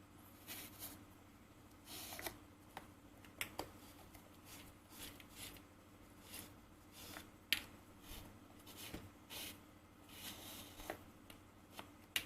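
Faint, irregular scratchy rubbing and soft clicks of hands working on a leather sneaker during a sole re-gluing repair, with one sharper tap about seven and a half seconds in.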